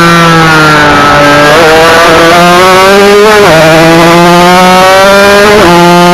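Yamaha TZR 250 two-stroke twin racing motorcycle engine under hard acceleration, heard very loud from on board. Its pitch climbs steadily and drops abruptly at gear changes about one and a half, three and a half and five and a half seconds in.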